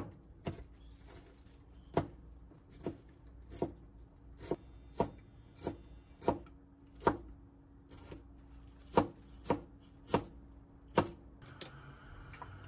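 Kitchen knife chopping broccoli florets on a cutting board: about fifteen sharp knocks, unevenly spaced, roughly one a second. A steady hum comes in near the end.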